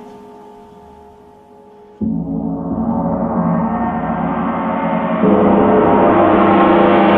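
A gong's ringing fades, then about two seconds in the gong is struck again and its sound swells into a bright, shimmering wash that keeps building, growing louder again a little after five seconds.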